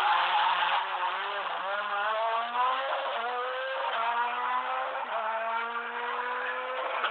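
Peugeot 207 S2000 rally car at full throttle as it passes close by, then pulling hard away through the gears. The engine note climbs and drops back at each of several upshifts, with each climb slower in the higher gears.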